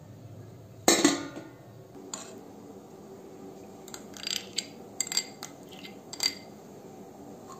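Cookware and utensils clattering: one loud metal clank with a short ring about a second in, then a run of lighter clinks and taps.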